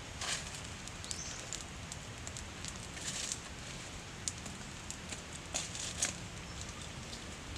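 Small wood fire crackling, a handful of sharp pops and ticks over a steady hiss, while a stick pokes and scrapes at the embers.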